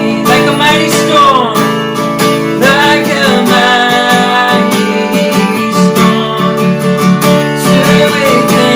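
Worship music: strummed acoustic guitar with a gliding sung melody line over it, but no clear words.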